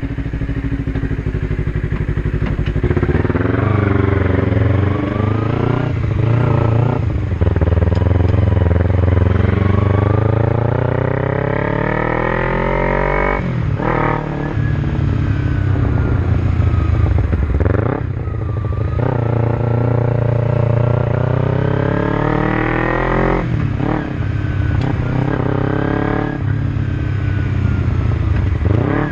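Kawasaki Ninja 250R's parallel-twin engine, breathing through an aftermarket growler exhaust fitted with an add-on baffle. It idles at first, then pulls away about three seconds in. The revs climb in several long sweeps and drop back between them as the bike rides off.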